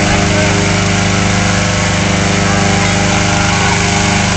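Small petrol engine running steadily at a constant speed.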